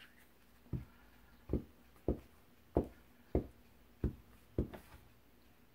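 Glue stick rubbed in repeated strokes over a small torn scrap of paper lying on a cutting mat. It makes about eight soft, dull knocks, a little under two a second.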